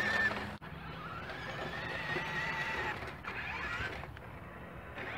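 Whine of an RC dump truck's electric drive motor and gears as it pulls a loaded trailer. The whine rises in pitch as the truck gets moving, holds steady, then rises again briefly a little after three seconds.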